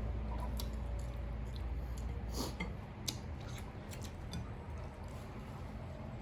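Close-up eating sounds: wet chewing and lip smacks, many short clicky noises at irregular intervals, over a steady low hum.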